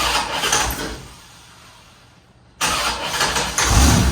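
1989 Corvette V8 being started twice: each time it fires up with a sudden burst and dies away within a second or two, the second attempt louder and longer. The engine doesn't want to stay running.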